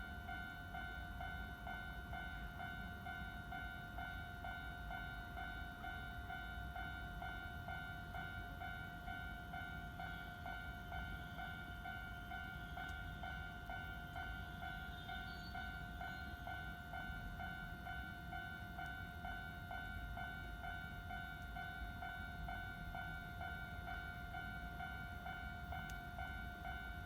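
Japanese railway level-crossing alarm ringing steadily, its electronic two-tone chime repeating without pause, over a low rumble.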